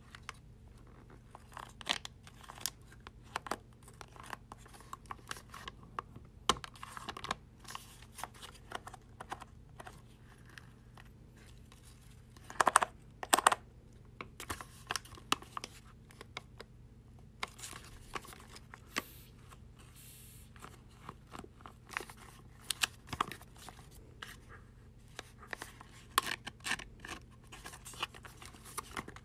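Homemade paper-covered fidget cube being handled and fiddled with: irregular clicks, scratches and paper rustling, with a louder cluster of clicks about 13 seconds in, over a faint steady hum.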